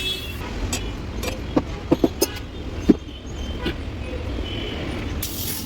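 Road traffic running steadily, with a quick run of about five sharp knocks or taps between one and a half and three seconds in.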